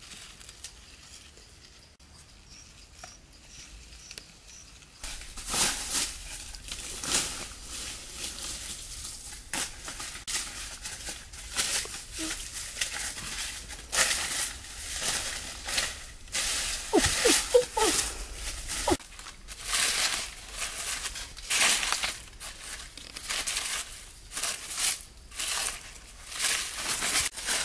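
Dry leaf litter rustling and crunching in repeated bursts under bare footsteps and a stick prodding through the leaves. The first few seconds are faint; the rustling starts about five seconds in.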